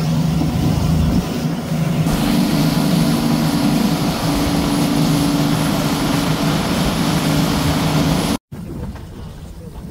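Fishing boat running at speed: steady engine drone under a loud rush of wind and water. The sound cuts out for an instant near the end and comes back quieter.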